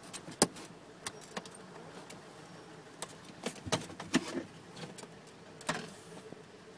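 Hand working behind a carpeted trunk trim panel, unplugging wiring connectors: scattered sharp plastic clicks and knocks, about eight of them at uneven intervals.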